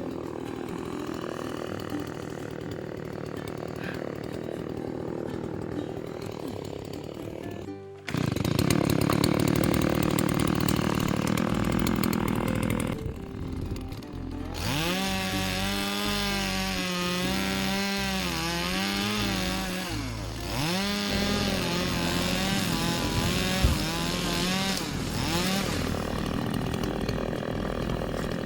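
Chainsaw running and cutting wood, its engine pitch rising and falling as it revs, in several short stretches that change abruptly.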